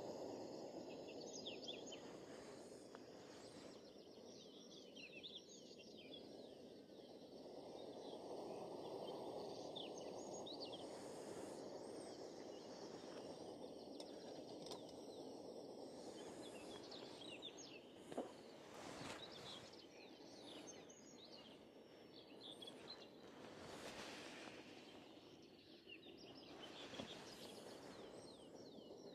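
Faint outdoor ambience: scattered songbird chirps over a steady low rushing background.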